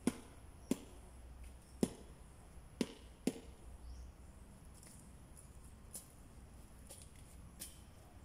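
A hand tool chopping into garden soil: five sharp strikes in the first three and a half seconds, then a few faint taps.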